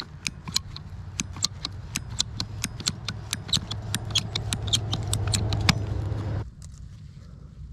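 A hand tool cutting through a buried white PVC irrigation pipe: a quick run of sharp clicks, about four a second, over a low rasp that grows louder. Both stop abruptly about six seconds in, as the pipe is cut through.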